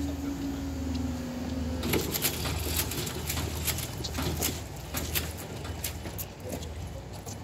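Level crossing barriers rising: the barrier mechanism's steady hum sinks slightly in pitch and cuts off about two seconds in as the booms reach upright. Scattered clicks and knocks follow over a low steady rumble.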